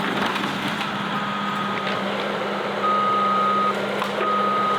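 Bulldozer's diesel engine running steadily while its backup alarm sounds three long beeps, about a second apart, as the dozer reverses.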